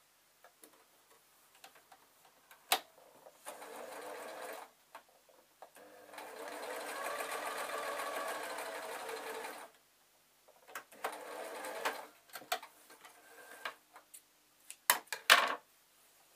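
Domestic sewing machine stitching in three runs: a short one, a long one of about four seconds, then another short one. Sharp clicks and knocks from handling come between the runs, and two loud clicks near the end are the loudest sounds.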